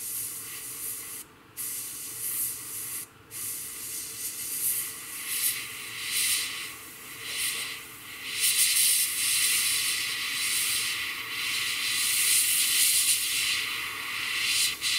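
Gravity-feed airbrush spraying paint: a hiss of air that stops and starts as the trigger is worked, with short breaks about one and a half and three seconds in, then held longer through the second half.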